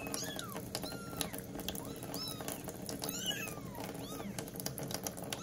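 Young kittens mewing: about six short, high mews, each rising and then falling in pitch, roughly one a second, with light clicks between them.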